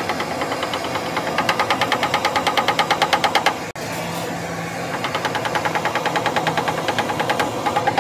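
An engine running with a rapid, even knocking, about seven beats a second, that grows louder twice.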